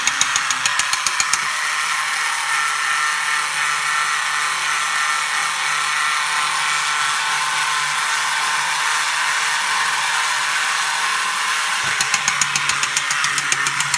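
Battery-operated Bandai Ford Thunderbird toy car's small electric motor and gears running. A rapid rhythmic clicking, about four a second, for the first second or so, then a steady whir, and the clicking returns near the end.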